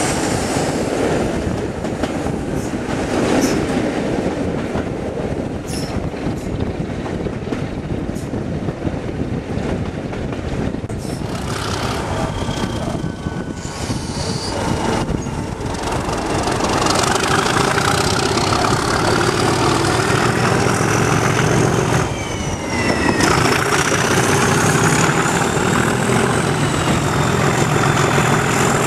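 Preserved British Rail diesel locomotive working hard under power, heard from an open window of the coach just behind it, with train running noise throughout. A high whine climbs steadily in pitch through the second half as the engine note grows heavier, with a brief dip about 22 seconds in.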